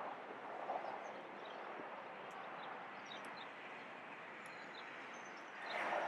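Steady outdoor background noise with scattered faint, short high chirps; it grows louder near the end.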